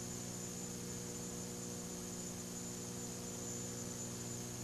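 Steady low electrical mains hum with hiss, typical of an old taped broadcast recording.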